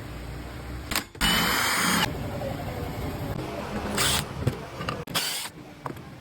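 A power tool run in three short bursts with a whine, the first lasting about a second and the other two briefer.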